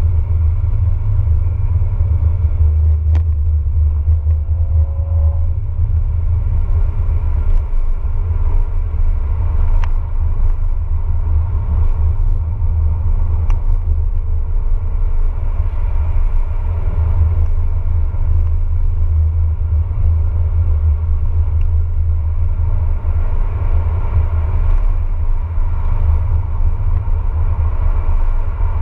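Steady low rumble of a Lancia Y hatchback's engine and tyres, heard from inside the cabin as the car laps a race circuit.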